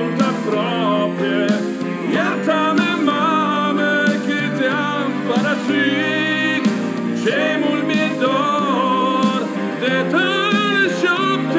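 A man singing a slow song in Romanian into a handheld microphone, with wavering held notes, over sustained instrumental accompaniment.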